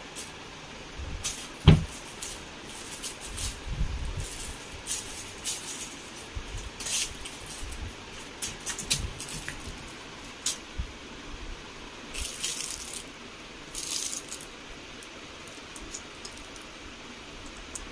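A crumpled clear plastic bottle crinkling and rattling in irregular bursts as a kitten bats and paws at it, with a sharp knock about two seconds in.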